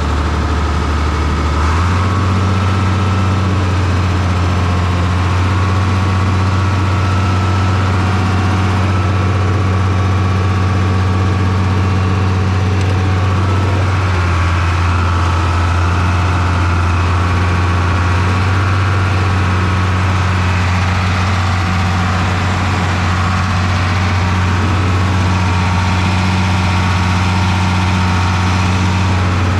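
Open-station farm tractor engine running steadily, heard from the driver's seat. Its note steps up slightly about two seconds in.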